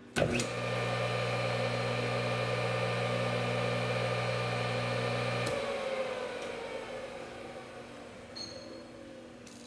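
Rebuilt Craftsman 1 hp single-phase capacitor-start two-pole induction motor, with freshly cleaned and re-lubricated sleeve bearings, switched on with a click and coming up to speed almost at once. It runs with a steady electrical hum and whine for about five seconds. Then it is switched off, and its whine falls in pitch as it coasts down.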